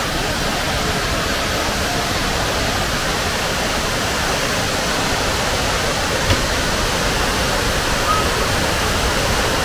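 Bash Bish Falls, a waterfall, rushing steadily.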